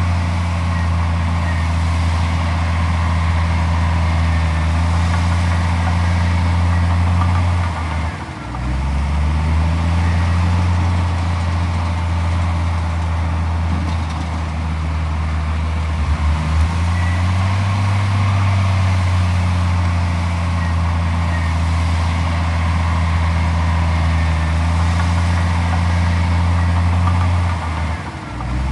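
Heavy diesel engine of earthmoving machinery running steadily under load. Its revs dip briefly and recover about eight seconds in and again near the end.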